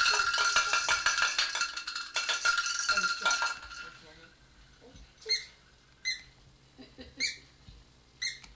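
A baby's bell toy jingling and ringing rapidly, dying away about three and a half seconds in. After it, a few short, high squeaks.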